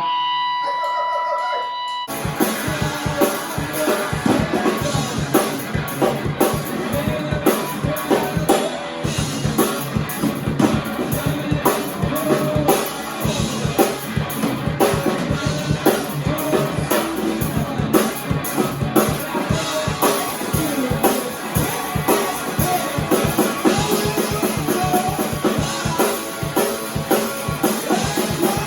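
Rock music with a drum kit and guitars. A steady held note sounds alone for about two seconds, then the drums and full band come in and play on.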